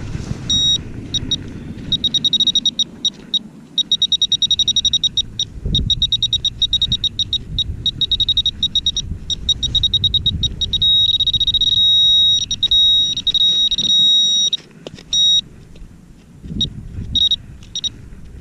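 Handheld metal-detector pinpointer beeping on a buried metal target: a high tone in quick pulses that speed up, slow and break off, at times running together into a steady tone, mostly from about eleven to fifteen seconds in. Low rumble of handling and wind underneath.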